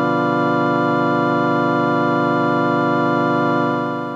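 A single chord held on an organ-like keyboard, steady and unchanging, then fading away near the end.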